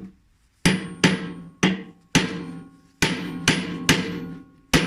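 Hammer blows on a steel socket set over the bolt on a front-loading washing machine's drum shaft, about eight ringing metal strikes at an uneven pace. The blows drive the drum shaft in through the bearing to free the drum for a bearing replacement.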